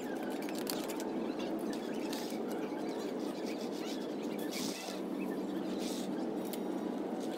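Damp clothes rustling and being shaken out as they are hung on a metal drying rack, in short bursts about two, five and six seconds in. A steady background noise runs under it, with faint bird chirps.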